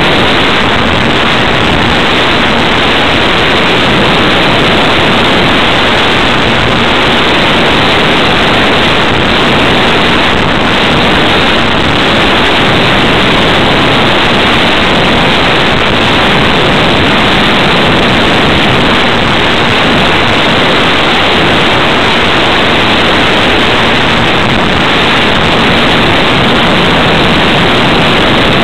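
Loud, steady rush of airflow and propeller noise on the onboard camera of a ParkZone T-28 Trojan electric RC plane in flight, with a faint steady hum underneath.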